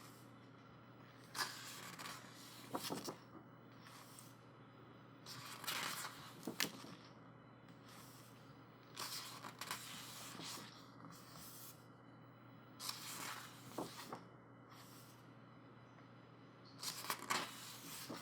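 Pages of a photobook being turned by hand: a soft papery swish and rustle every few seconds, about six times.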